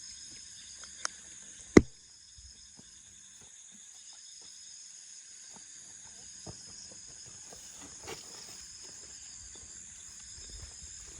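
A steady, high chorus of night insects, with two sharp knocks about a second and two seconds in, the second much louder, and faint scattered rustling and taps.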